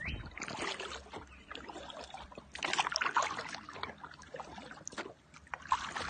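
Kayak paddle strokes: water splashing and trickling off the blades in irregular dips, with a louder splash about halfway through.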